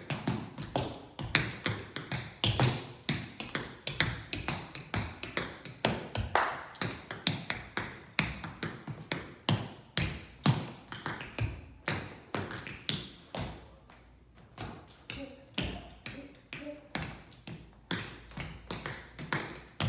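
Tap shoes striking a hard floor in a fast tap dance routine: quick runs of taps with louder accents, easing off briefly about fourteen seconds in.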